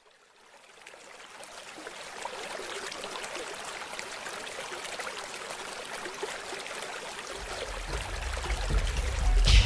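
Trickling water fading in. A low rumble comes in about seven seconds in and grows louder towards the end.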